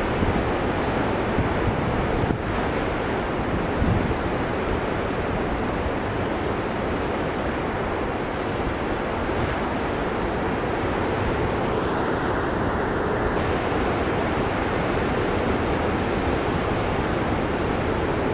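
Ocean surf breaking on a sandy beach: a steady wash of waves.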